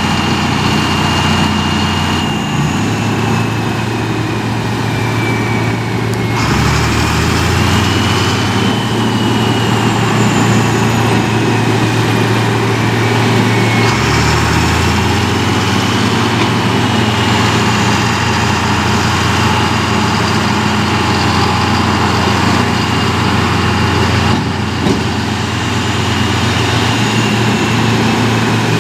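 Engine of a large forestry machine running steadily with a low hum and a thin high whine that slowly falls and rises in pitch. The sound changes abruptly a few times: about two, six, fourteen and twenty-four seconds in.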